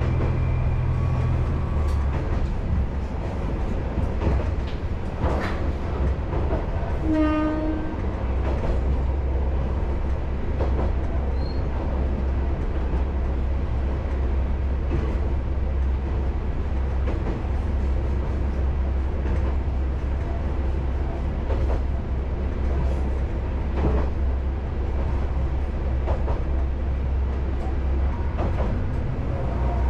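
Isumi Railway diesel railcar running along the line: a steady low engine drone that drops in pitch about a second and a half in and picks up again near the end, with faint rail clicks. About seven seconds in, a short horn blast.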